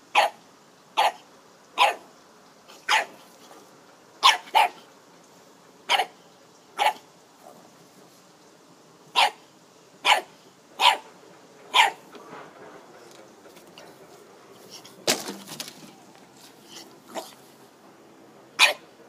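Boston Terrier puppy barking at a cat-shaped foil balloon. About a dozen short, sharp barks come roughly one a second, with a lull of a few seconds past the middle and more barks near the end.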